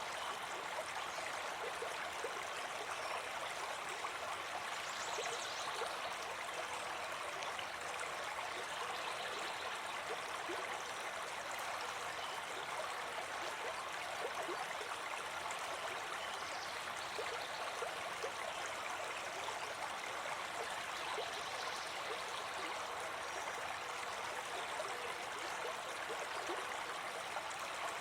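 A brook babbling steadily, an even rush of running water.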